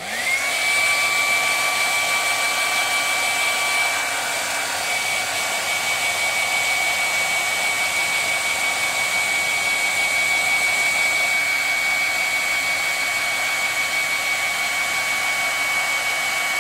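Hair dryer switched on and running steadily: a rush of air with a high whine from its fan motor that rises briefly as it spins up at the start, used here to shrink heat-shrink wrap onto a battery.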